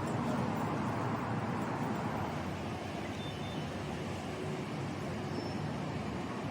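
Steady road traffic noise: a continuous wash of passing vehicles, with no single event standing out.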